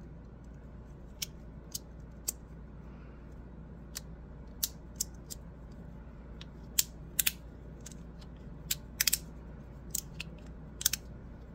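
Double-sided magnetic fidget slider with smooth plastic plates clicking as the halves are slid and snap from one magnet position to the next: about a dozen small sharp clicks at uneven intervals, some in quick pairs or threes.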